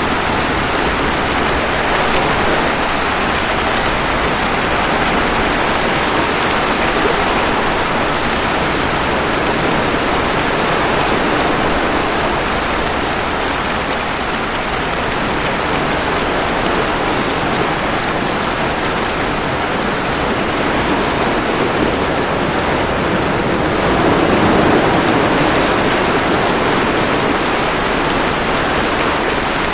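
Steady rain mixed with waves washing ashore, a dense even hiss of falling water. The wash swells briefly louder about three-quarters of the way through.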